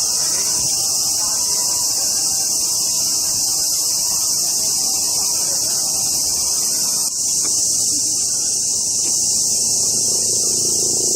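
Cicadas in full summer chorus: a loud, steady, high-pitched buzzing drone.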